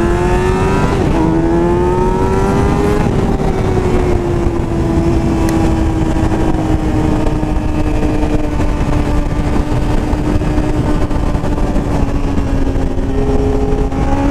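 Motorcycle engine accelerating hard at speed, its pitch climbing for about three seconds. It then eases back and holds a steady high-revving note, and climbs again near the end.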